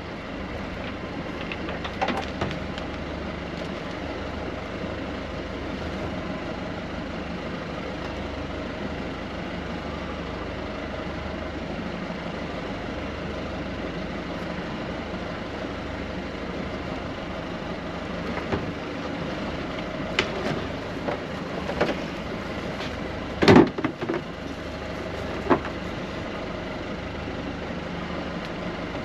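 Boat engine running steadily at low revs, with a few sharp knocks and clatter of fishing gear in the boat, the loudest knock about three-quarters of the way through.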